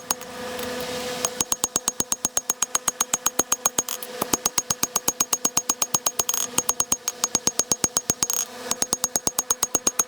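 Rapid, evenly spaced hammer blows on hot steel at the anvil, about seven a second, beveling a wootz steel tanto blade, with a steady hum underneath.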